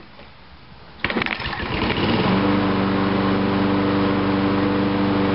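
Toro walk-behind lawn mower engine, freshly primed, starting about a second in: a rough clatter as it catches, then settling into a steady even run.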